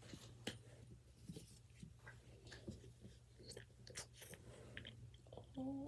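Faint scattered clicks and rustles of a plastic lotion bottle being handled and squeezed, over a steady low room hum.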